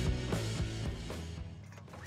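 Background music with a steady beat and held notes, fading out toward the end.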